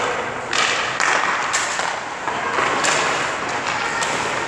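Hockey rink ice sounds: skate blades scraping the ice in several short strokes, with sudden knocks of sticks or pucks.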